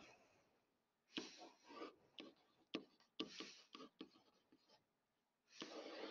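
Faint scratching of a stylus writing by hand on a tablet surface: a run of short strokes with brief gaps between them.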